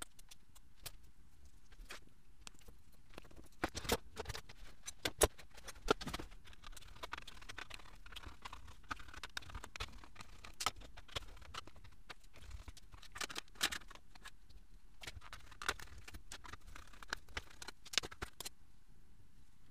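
Scattered clicks and taps of a screwdriver, small screws and plastic parts being handled while a display board is taken out of a plastic front panel. The gloved hands make a soft rustle, and the clicks begin a few seconds in.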